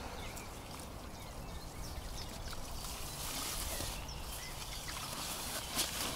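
Water pouring and trickling off a landing net as a big catfish is lifted out of the lake in it, with a sharp knock near the end.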